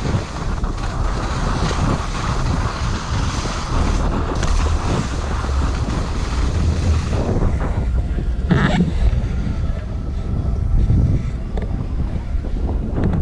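Wind buffeting the microphone with a steady rushing rumble, as from a camera moving fast down a ski slope, with a brief louder gust about two-thirds of the way through.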